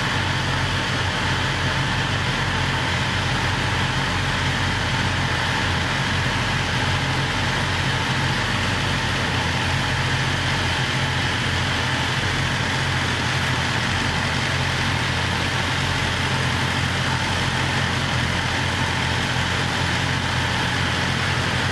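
BMW S 1000 RR's inline four-cylinder engine idling steadily, with no revving.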